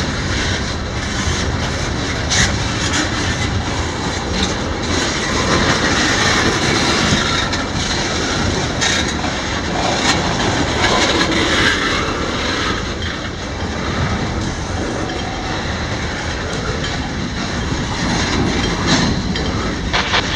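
CSX freight train rolling past, its cars' wheels rumbling steadily on the rails with irregular clicks and clatter over rail joints.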